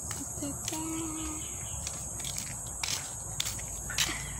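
Insects trilling in a steady, high, unbroken chorus, with scattered short clicks.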